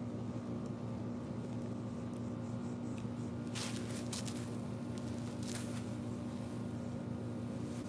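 A steady low mechanical hum, with brief rustling noises about three and a half and five and a half seconds in.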